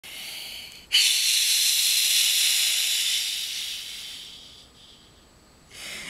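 A loud hiss that starts abruptly about a second in, after a fainter one, then fades away over the next three seconds or so.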